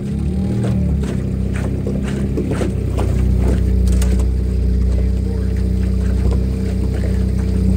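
Small boat's outboard motor running steadily at trolling speed, with scattered short knocks over it.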